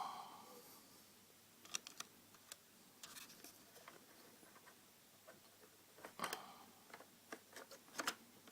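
A soft knock, then scattered small clicks and taps as RAM modules and the plastic tabs in an iMac's memory bay are handled and pushed into place.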